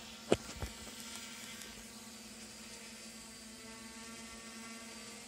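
Steady hum of an S500 quadcopter's electric motors and propellers as it hovers in place on GPS and altitude hold. Two sharp knocks near the start, the first the loudest sound.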